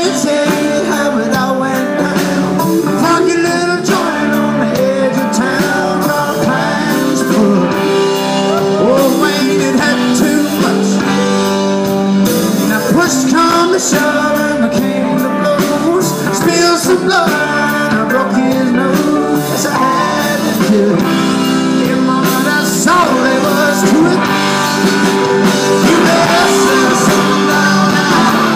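Southern rock band playing live: overdriven electric guitars, drums and a male lead vocal, heard loud through the room from the audience.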